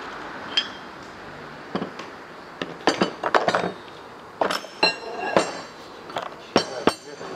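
Metal parts clinking and tapping, about ten irregular sharp knocks with a brief ring, as a diesel common rail and its unscrewed rail pressure sensor are handled and set down on a metal parts tray.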